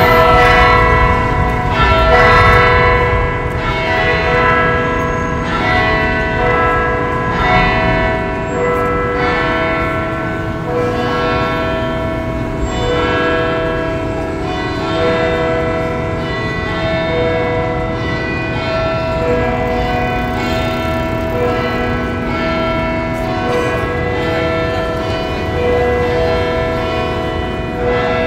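Church bells ringing, several bells struck one after another in a continuous overlapping peal, echoing off the surrounding buildings.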